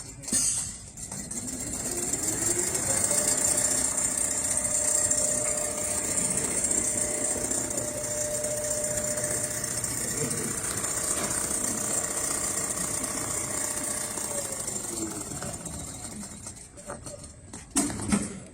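Automatic CNC sewing machine running. Its motor speeds up over the first couple of seconds, runs at a steady speed, then slows down and stops about three-quarters of the way through.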